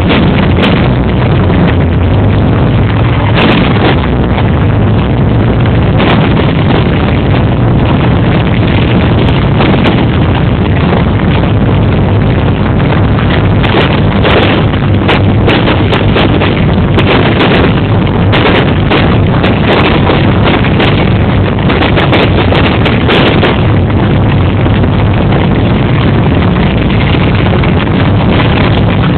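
Fireworks display: a continuous, loud, dense rumble with many sharp bangs and crackles, thickest in the middle stretch.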